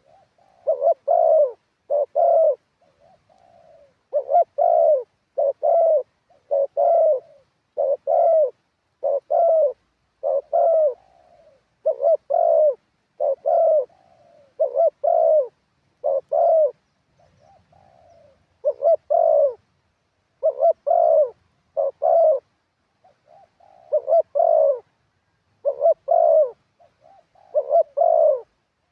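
Spotted dove cooing over and over in short phrases of a few low coos, a new phrase roughly every second or two, with brief pauses between runs.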